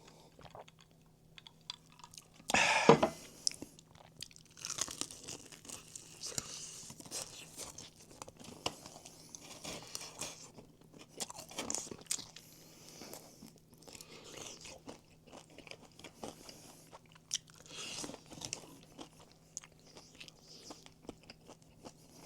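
Crispy fried chicken being bitten and chewed close to the microphone: one loud crunching bite about two and a half seconds in, then a run of smaller crunching chews.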